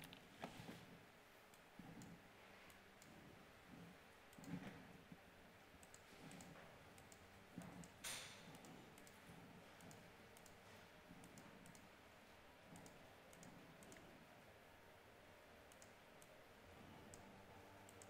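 Near silence: room tone with faint, scattered clicks from a computer being worked, one a little louder about eight seconds in.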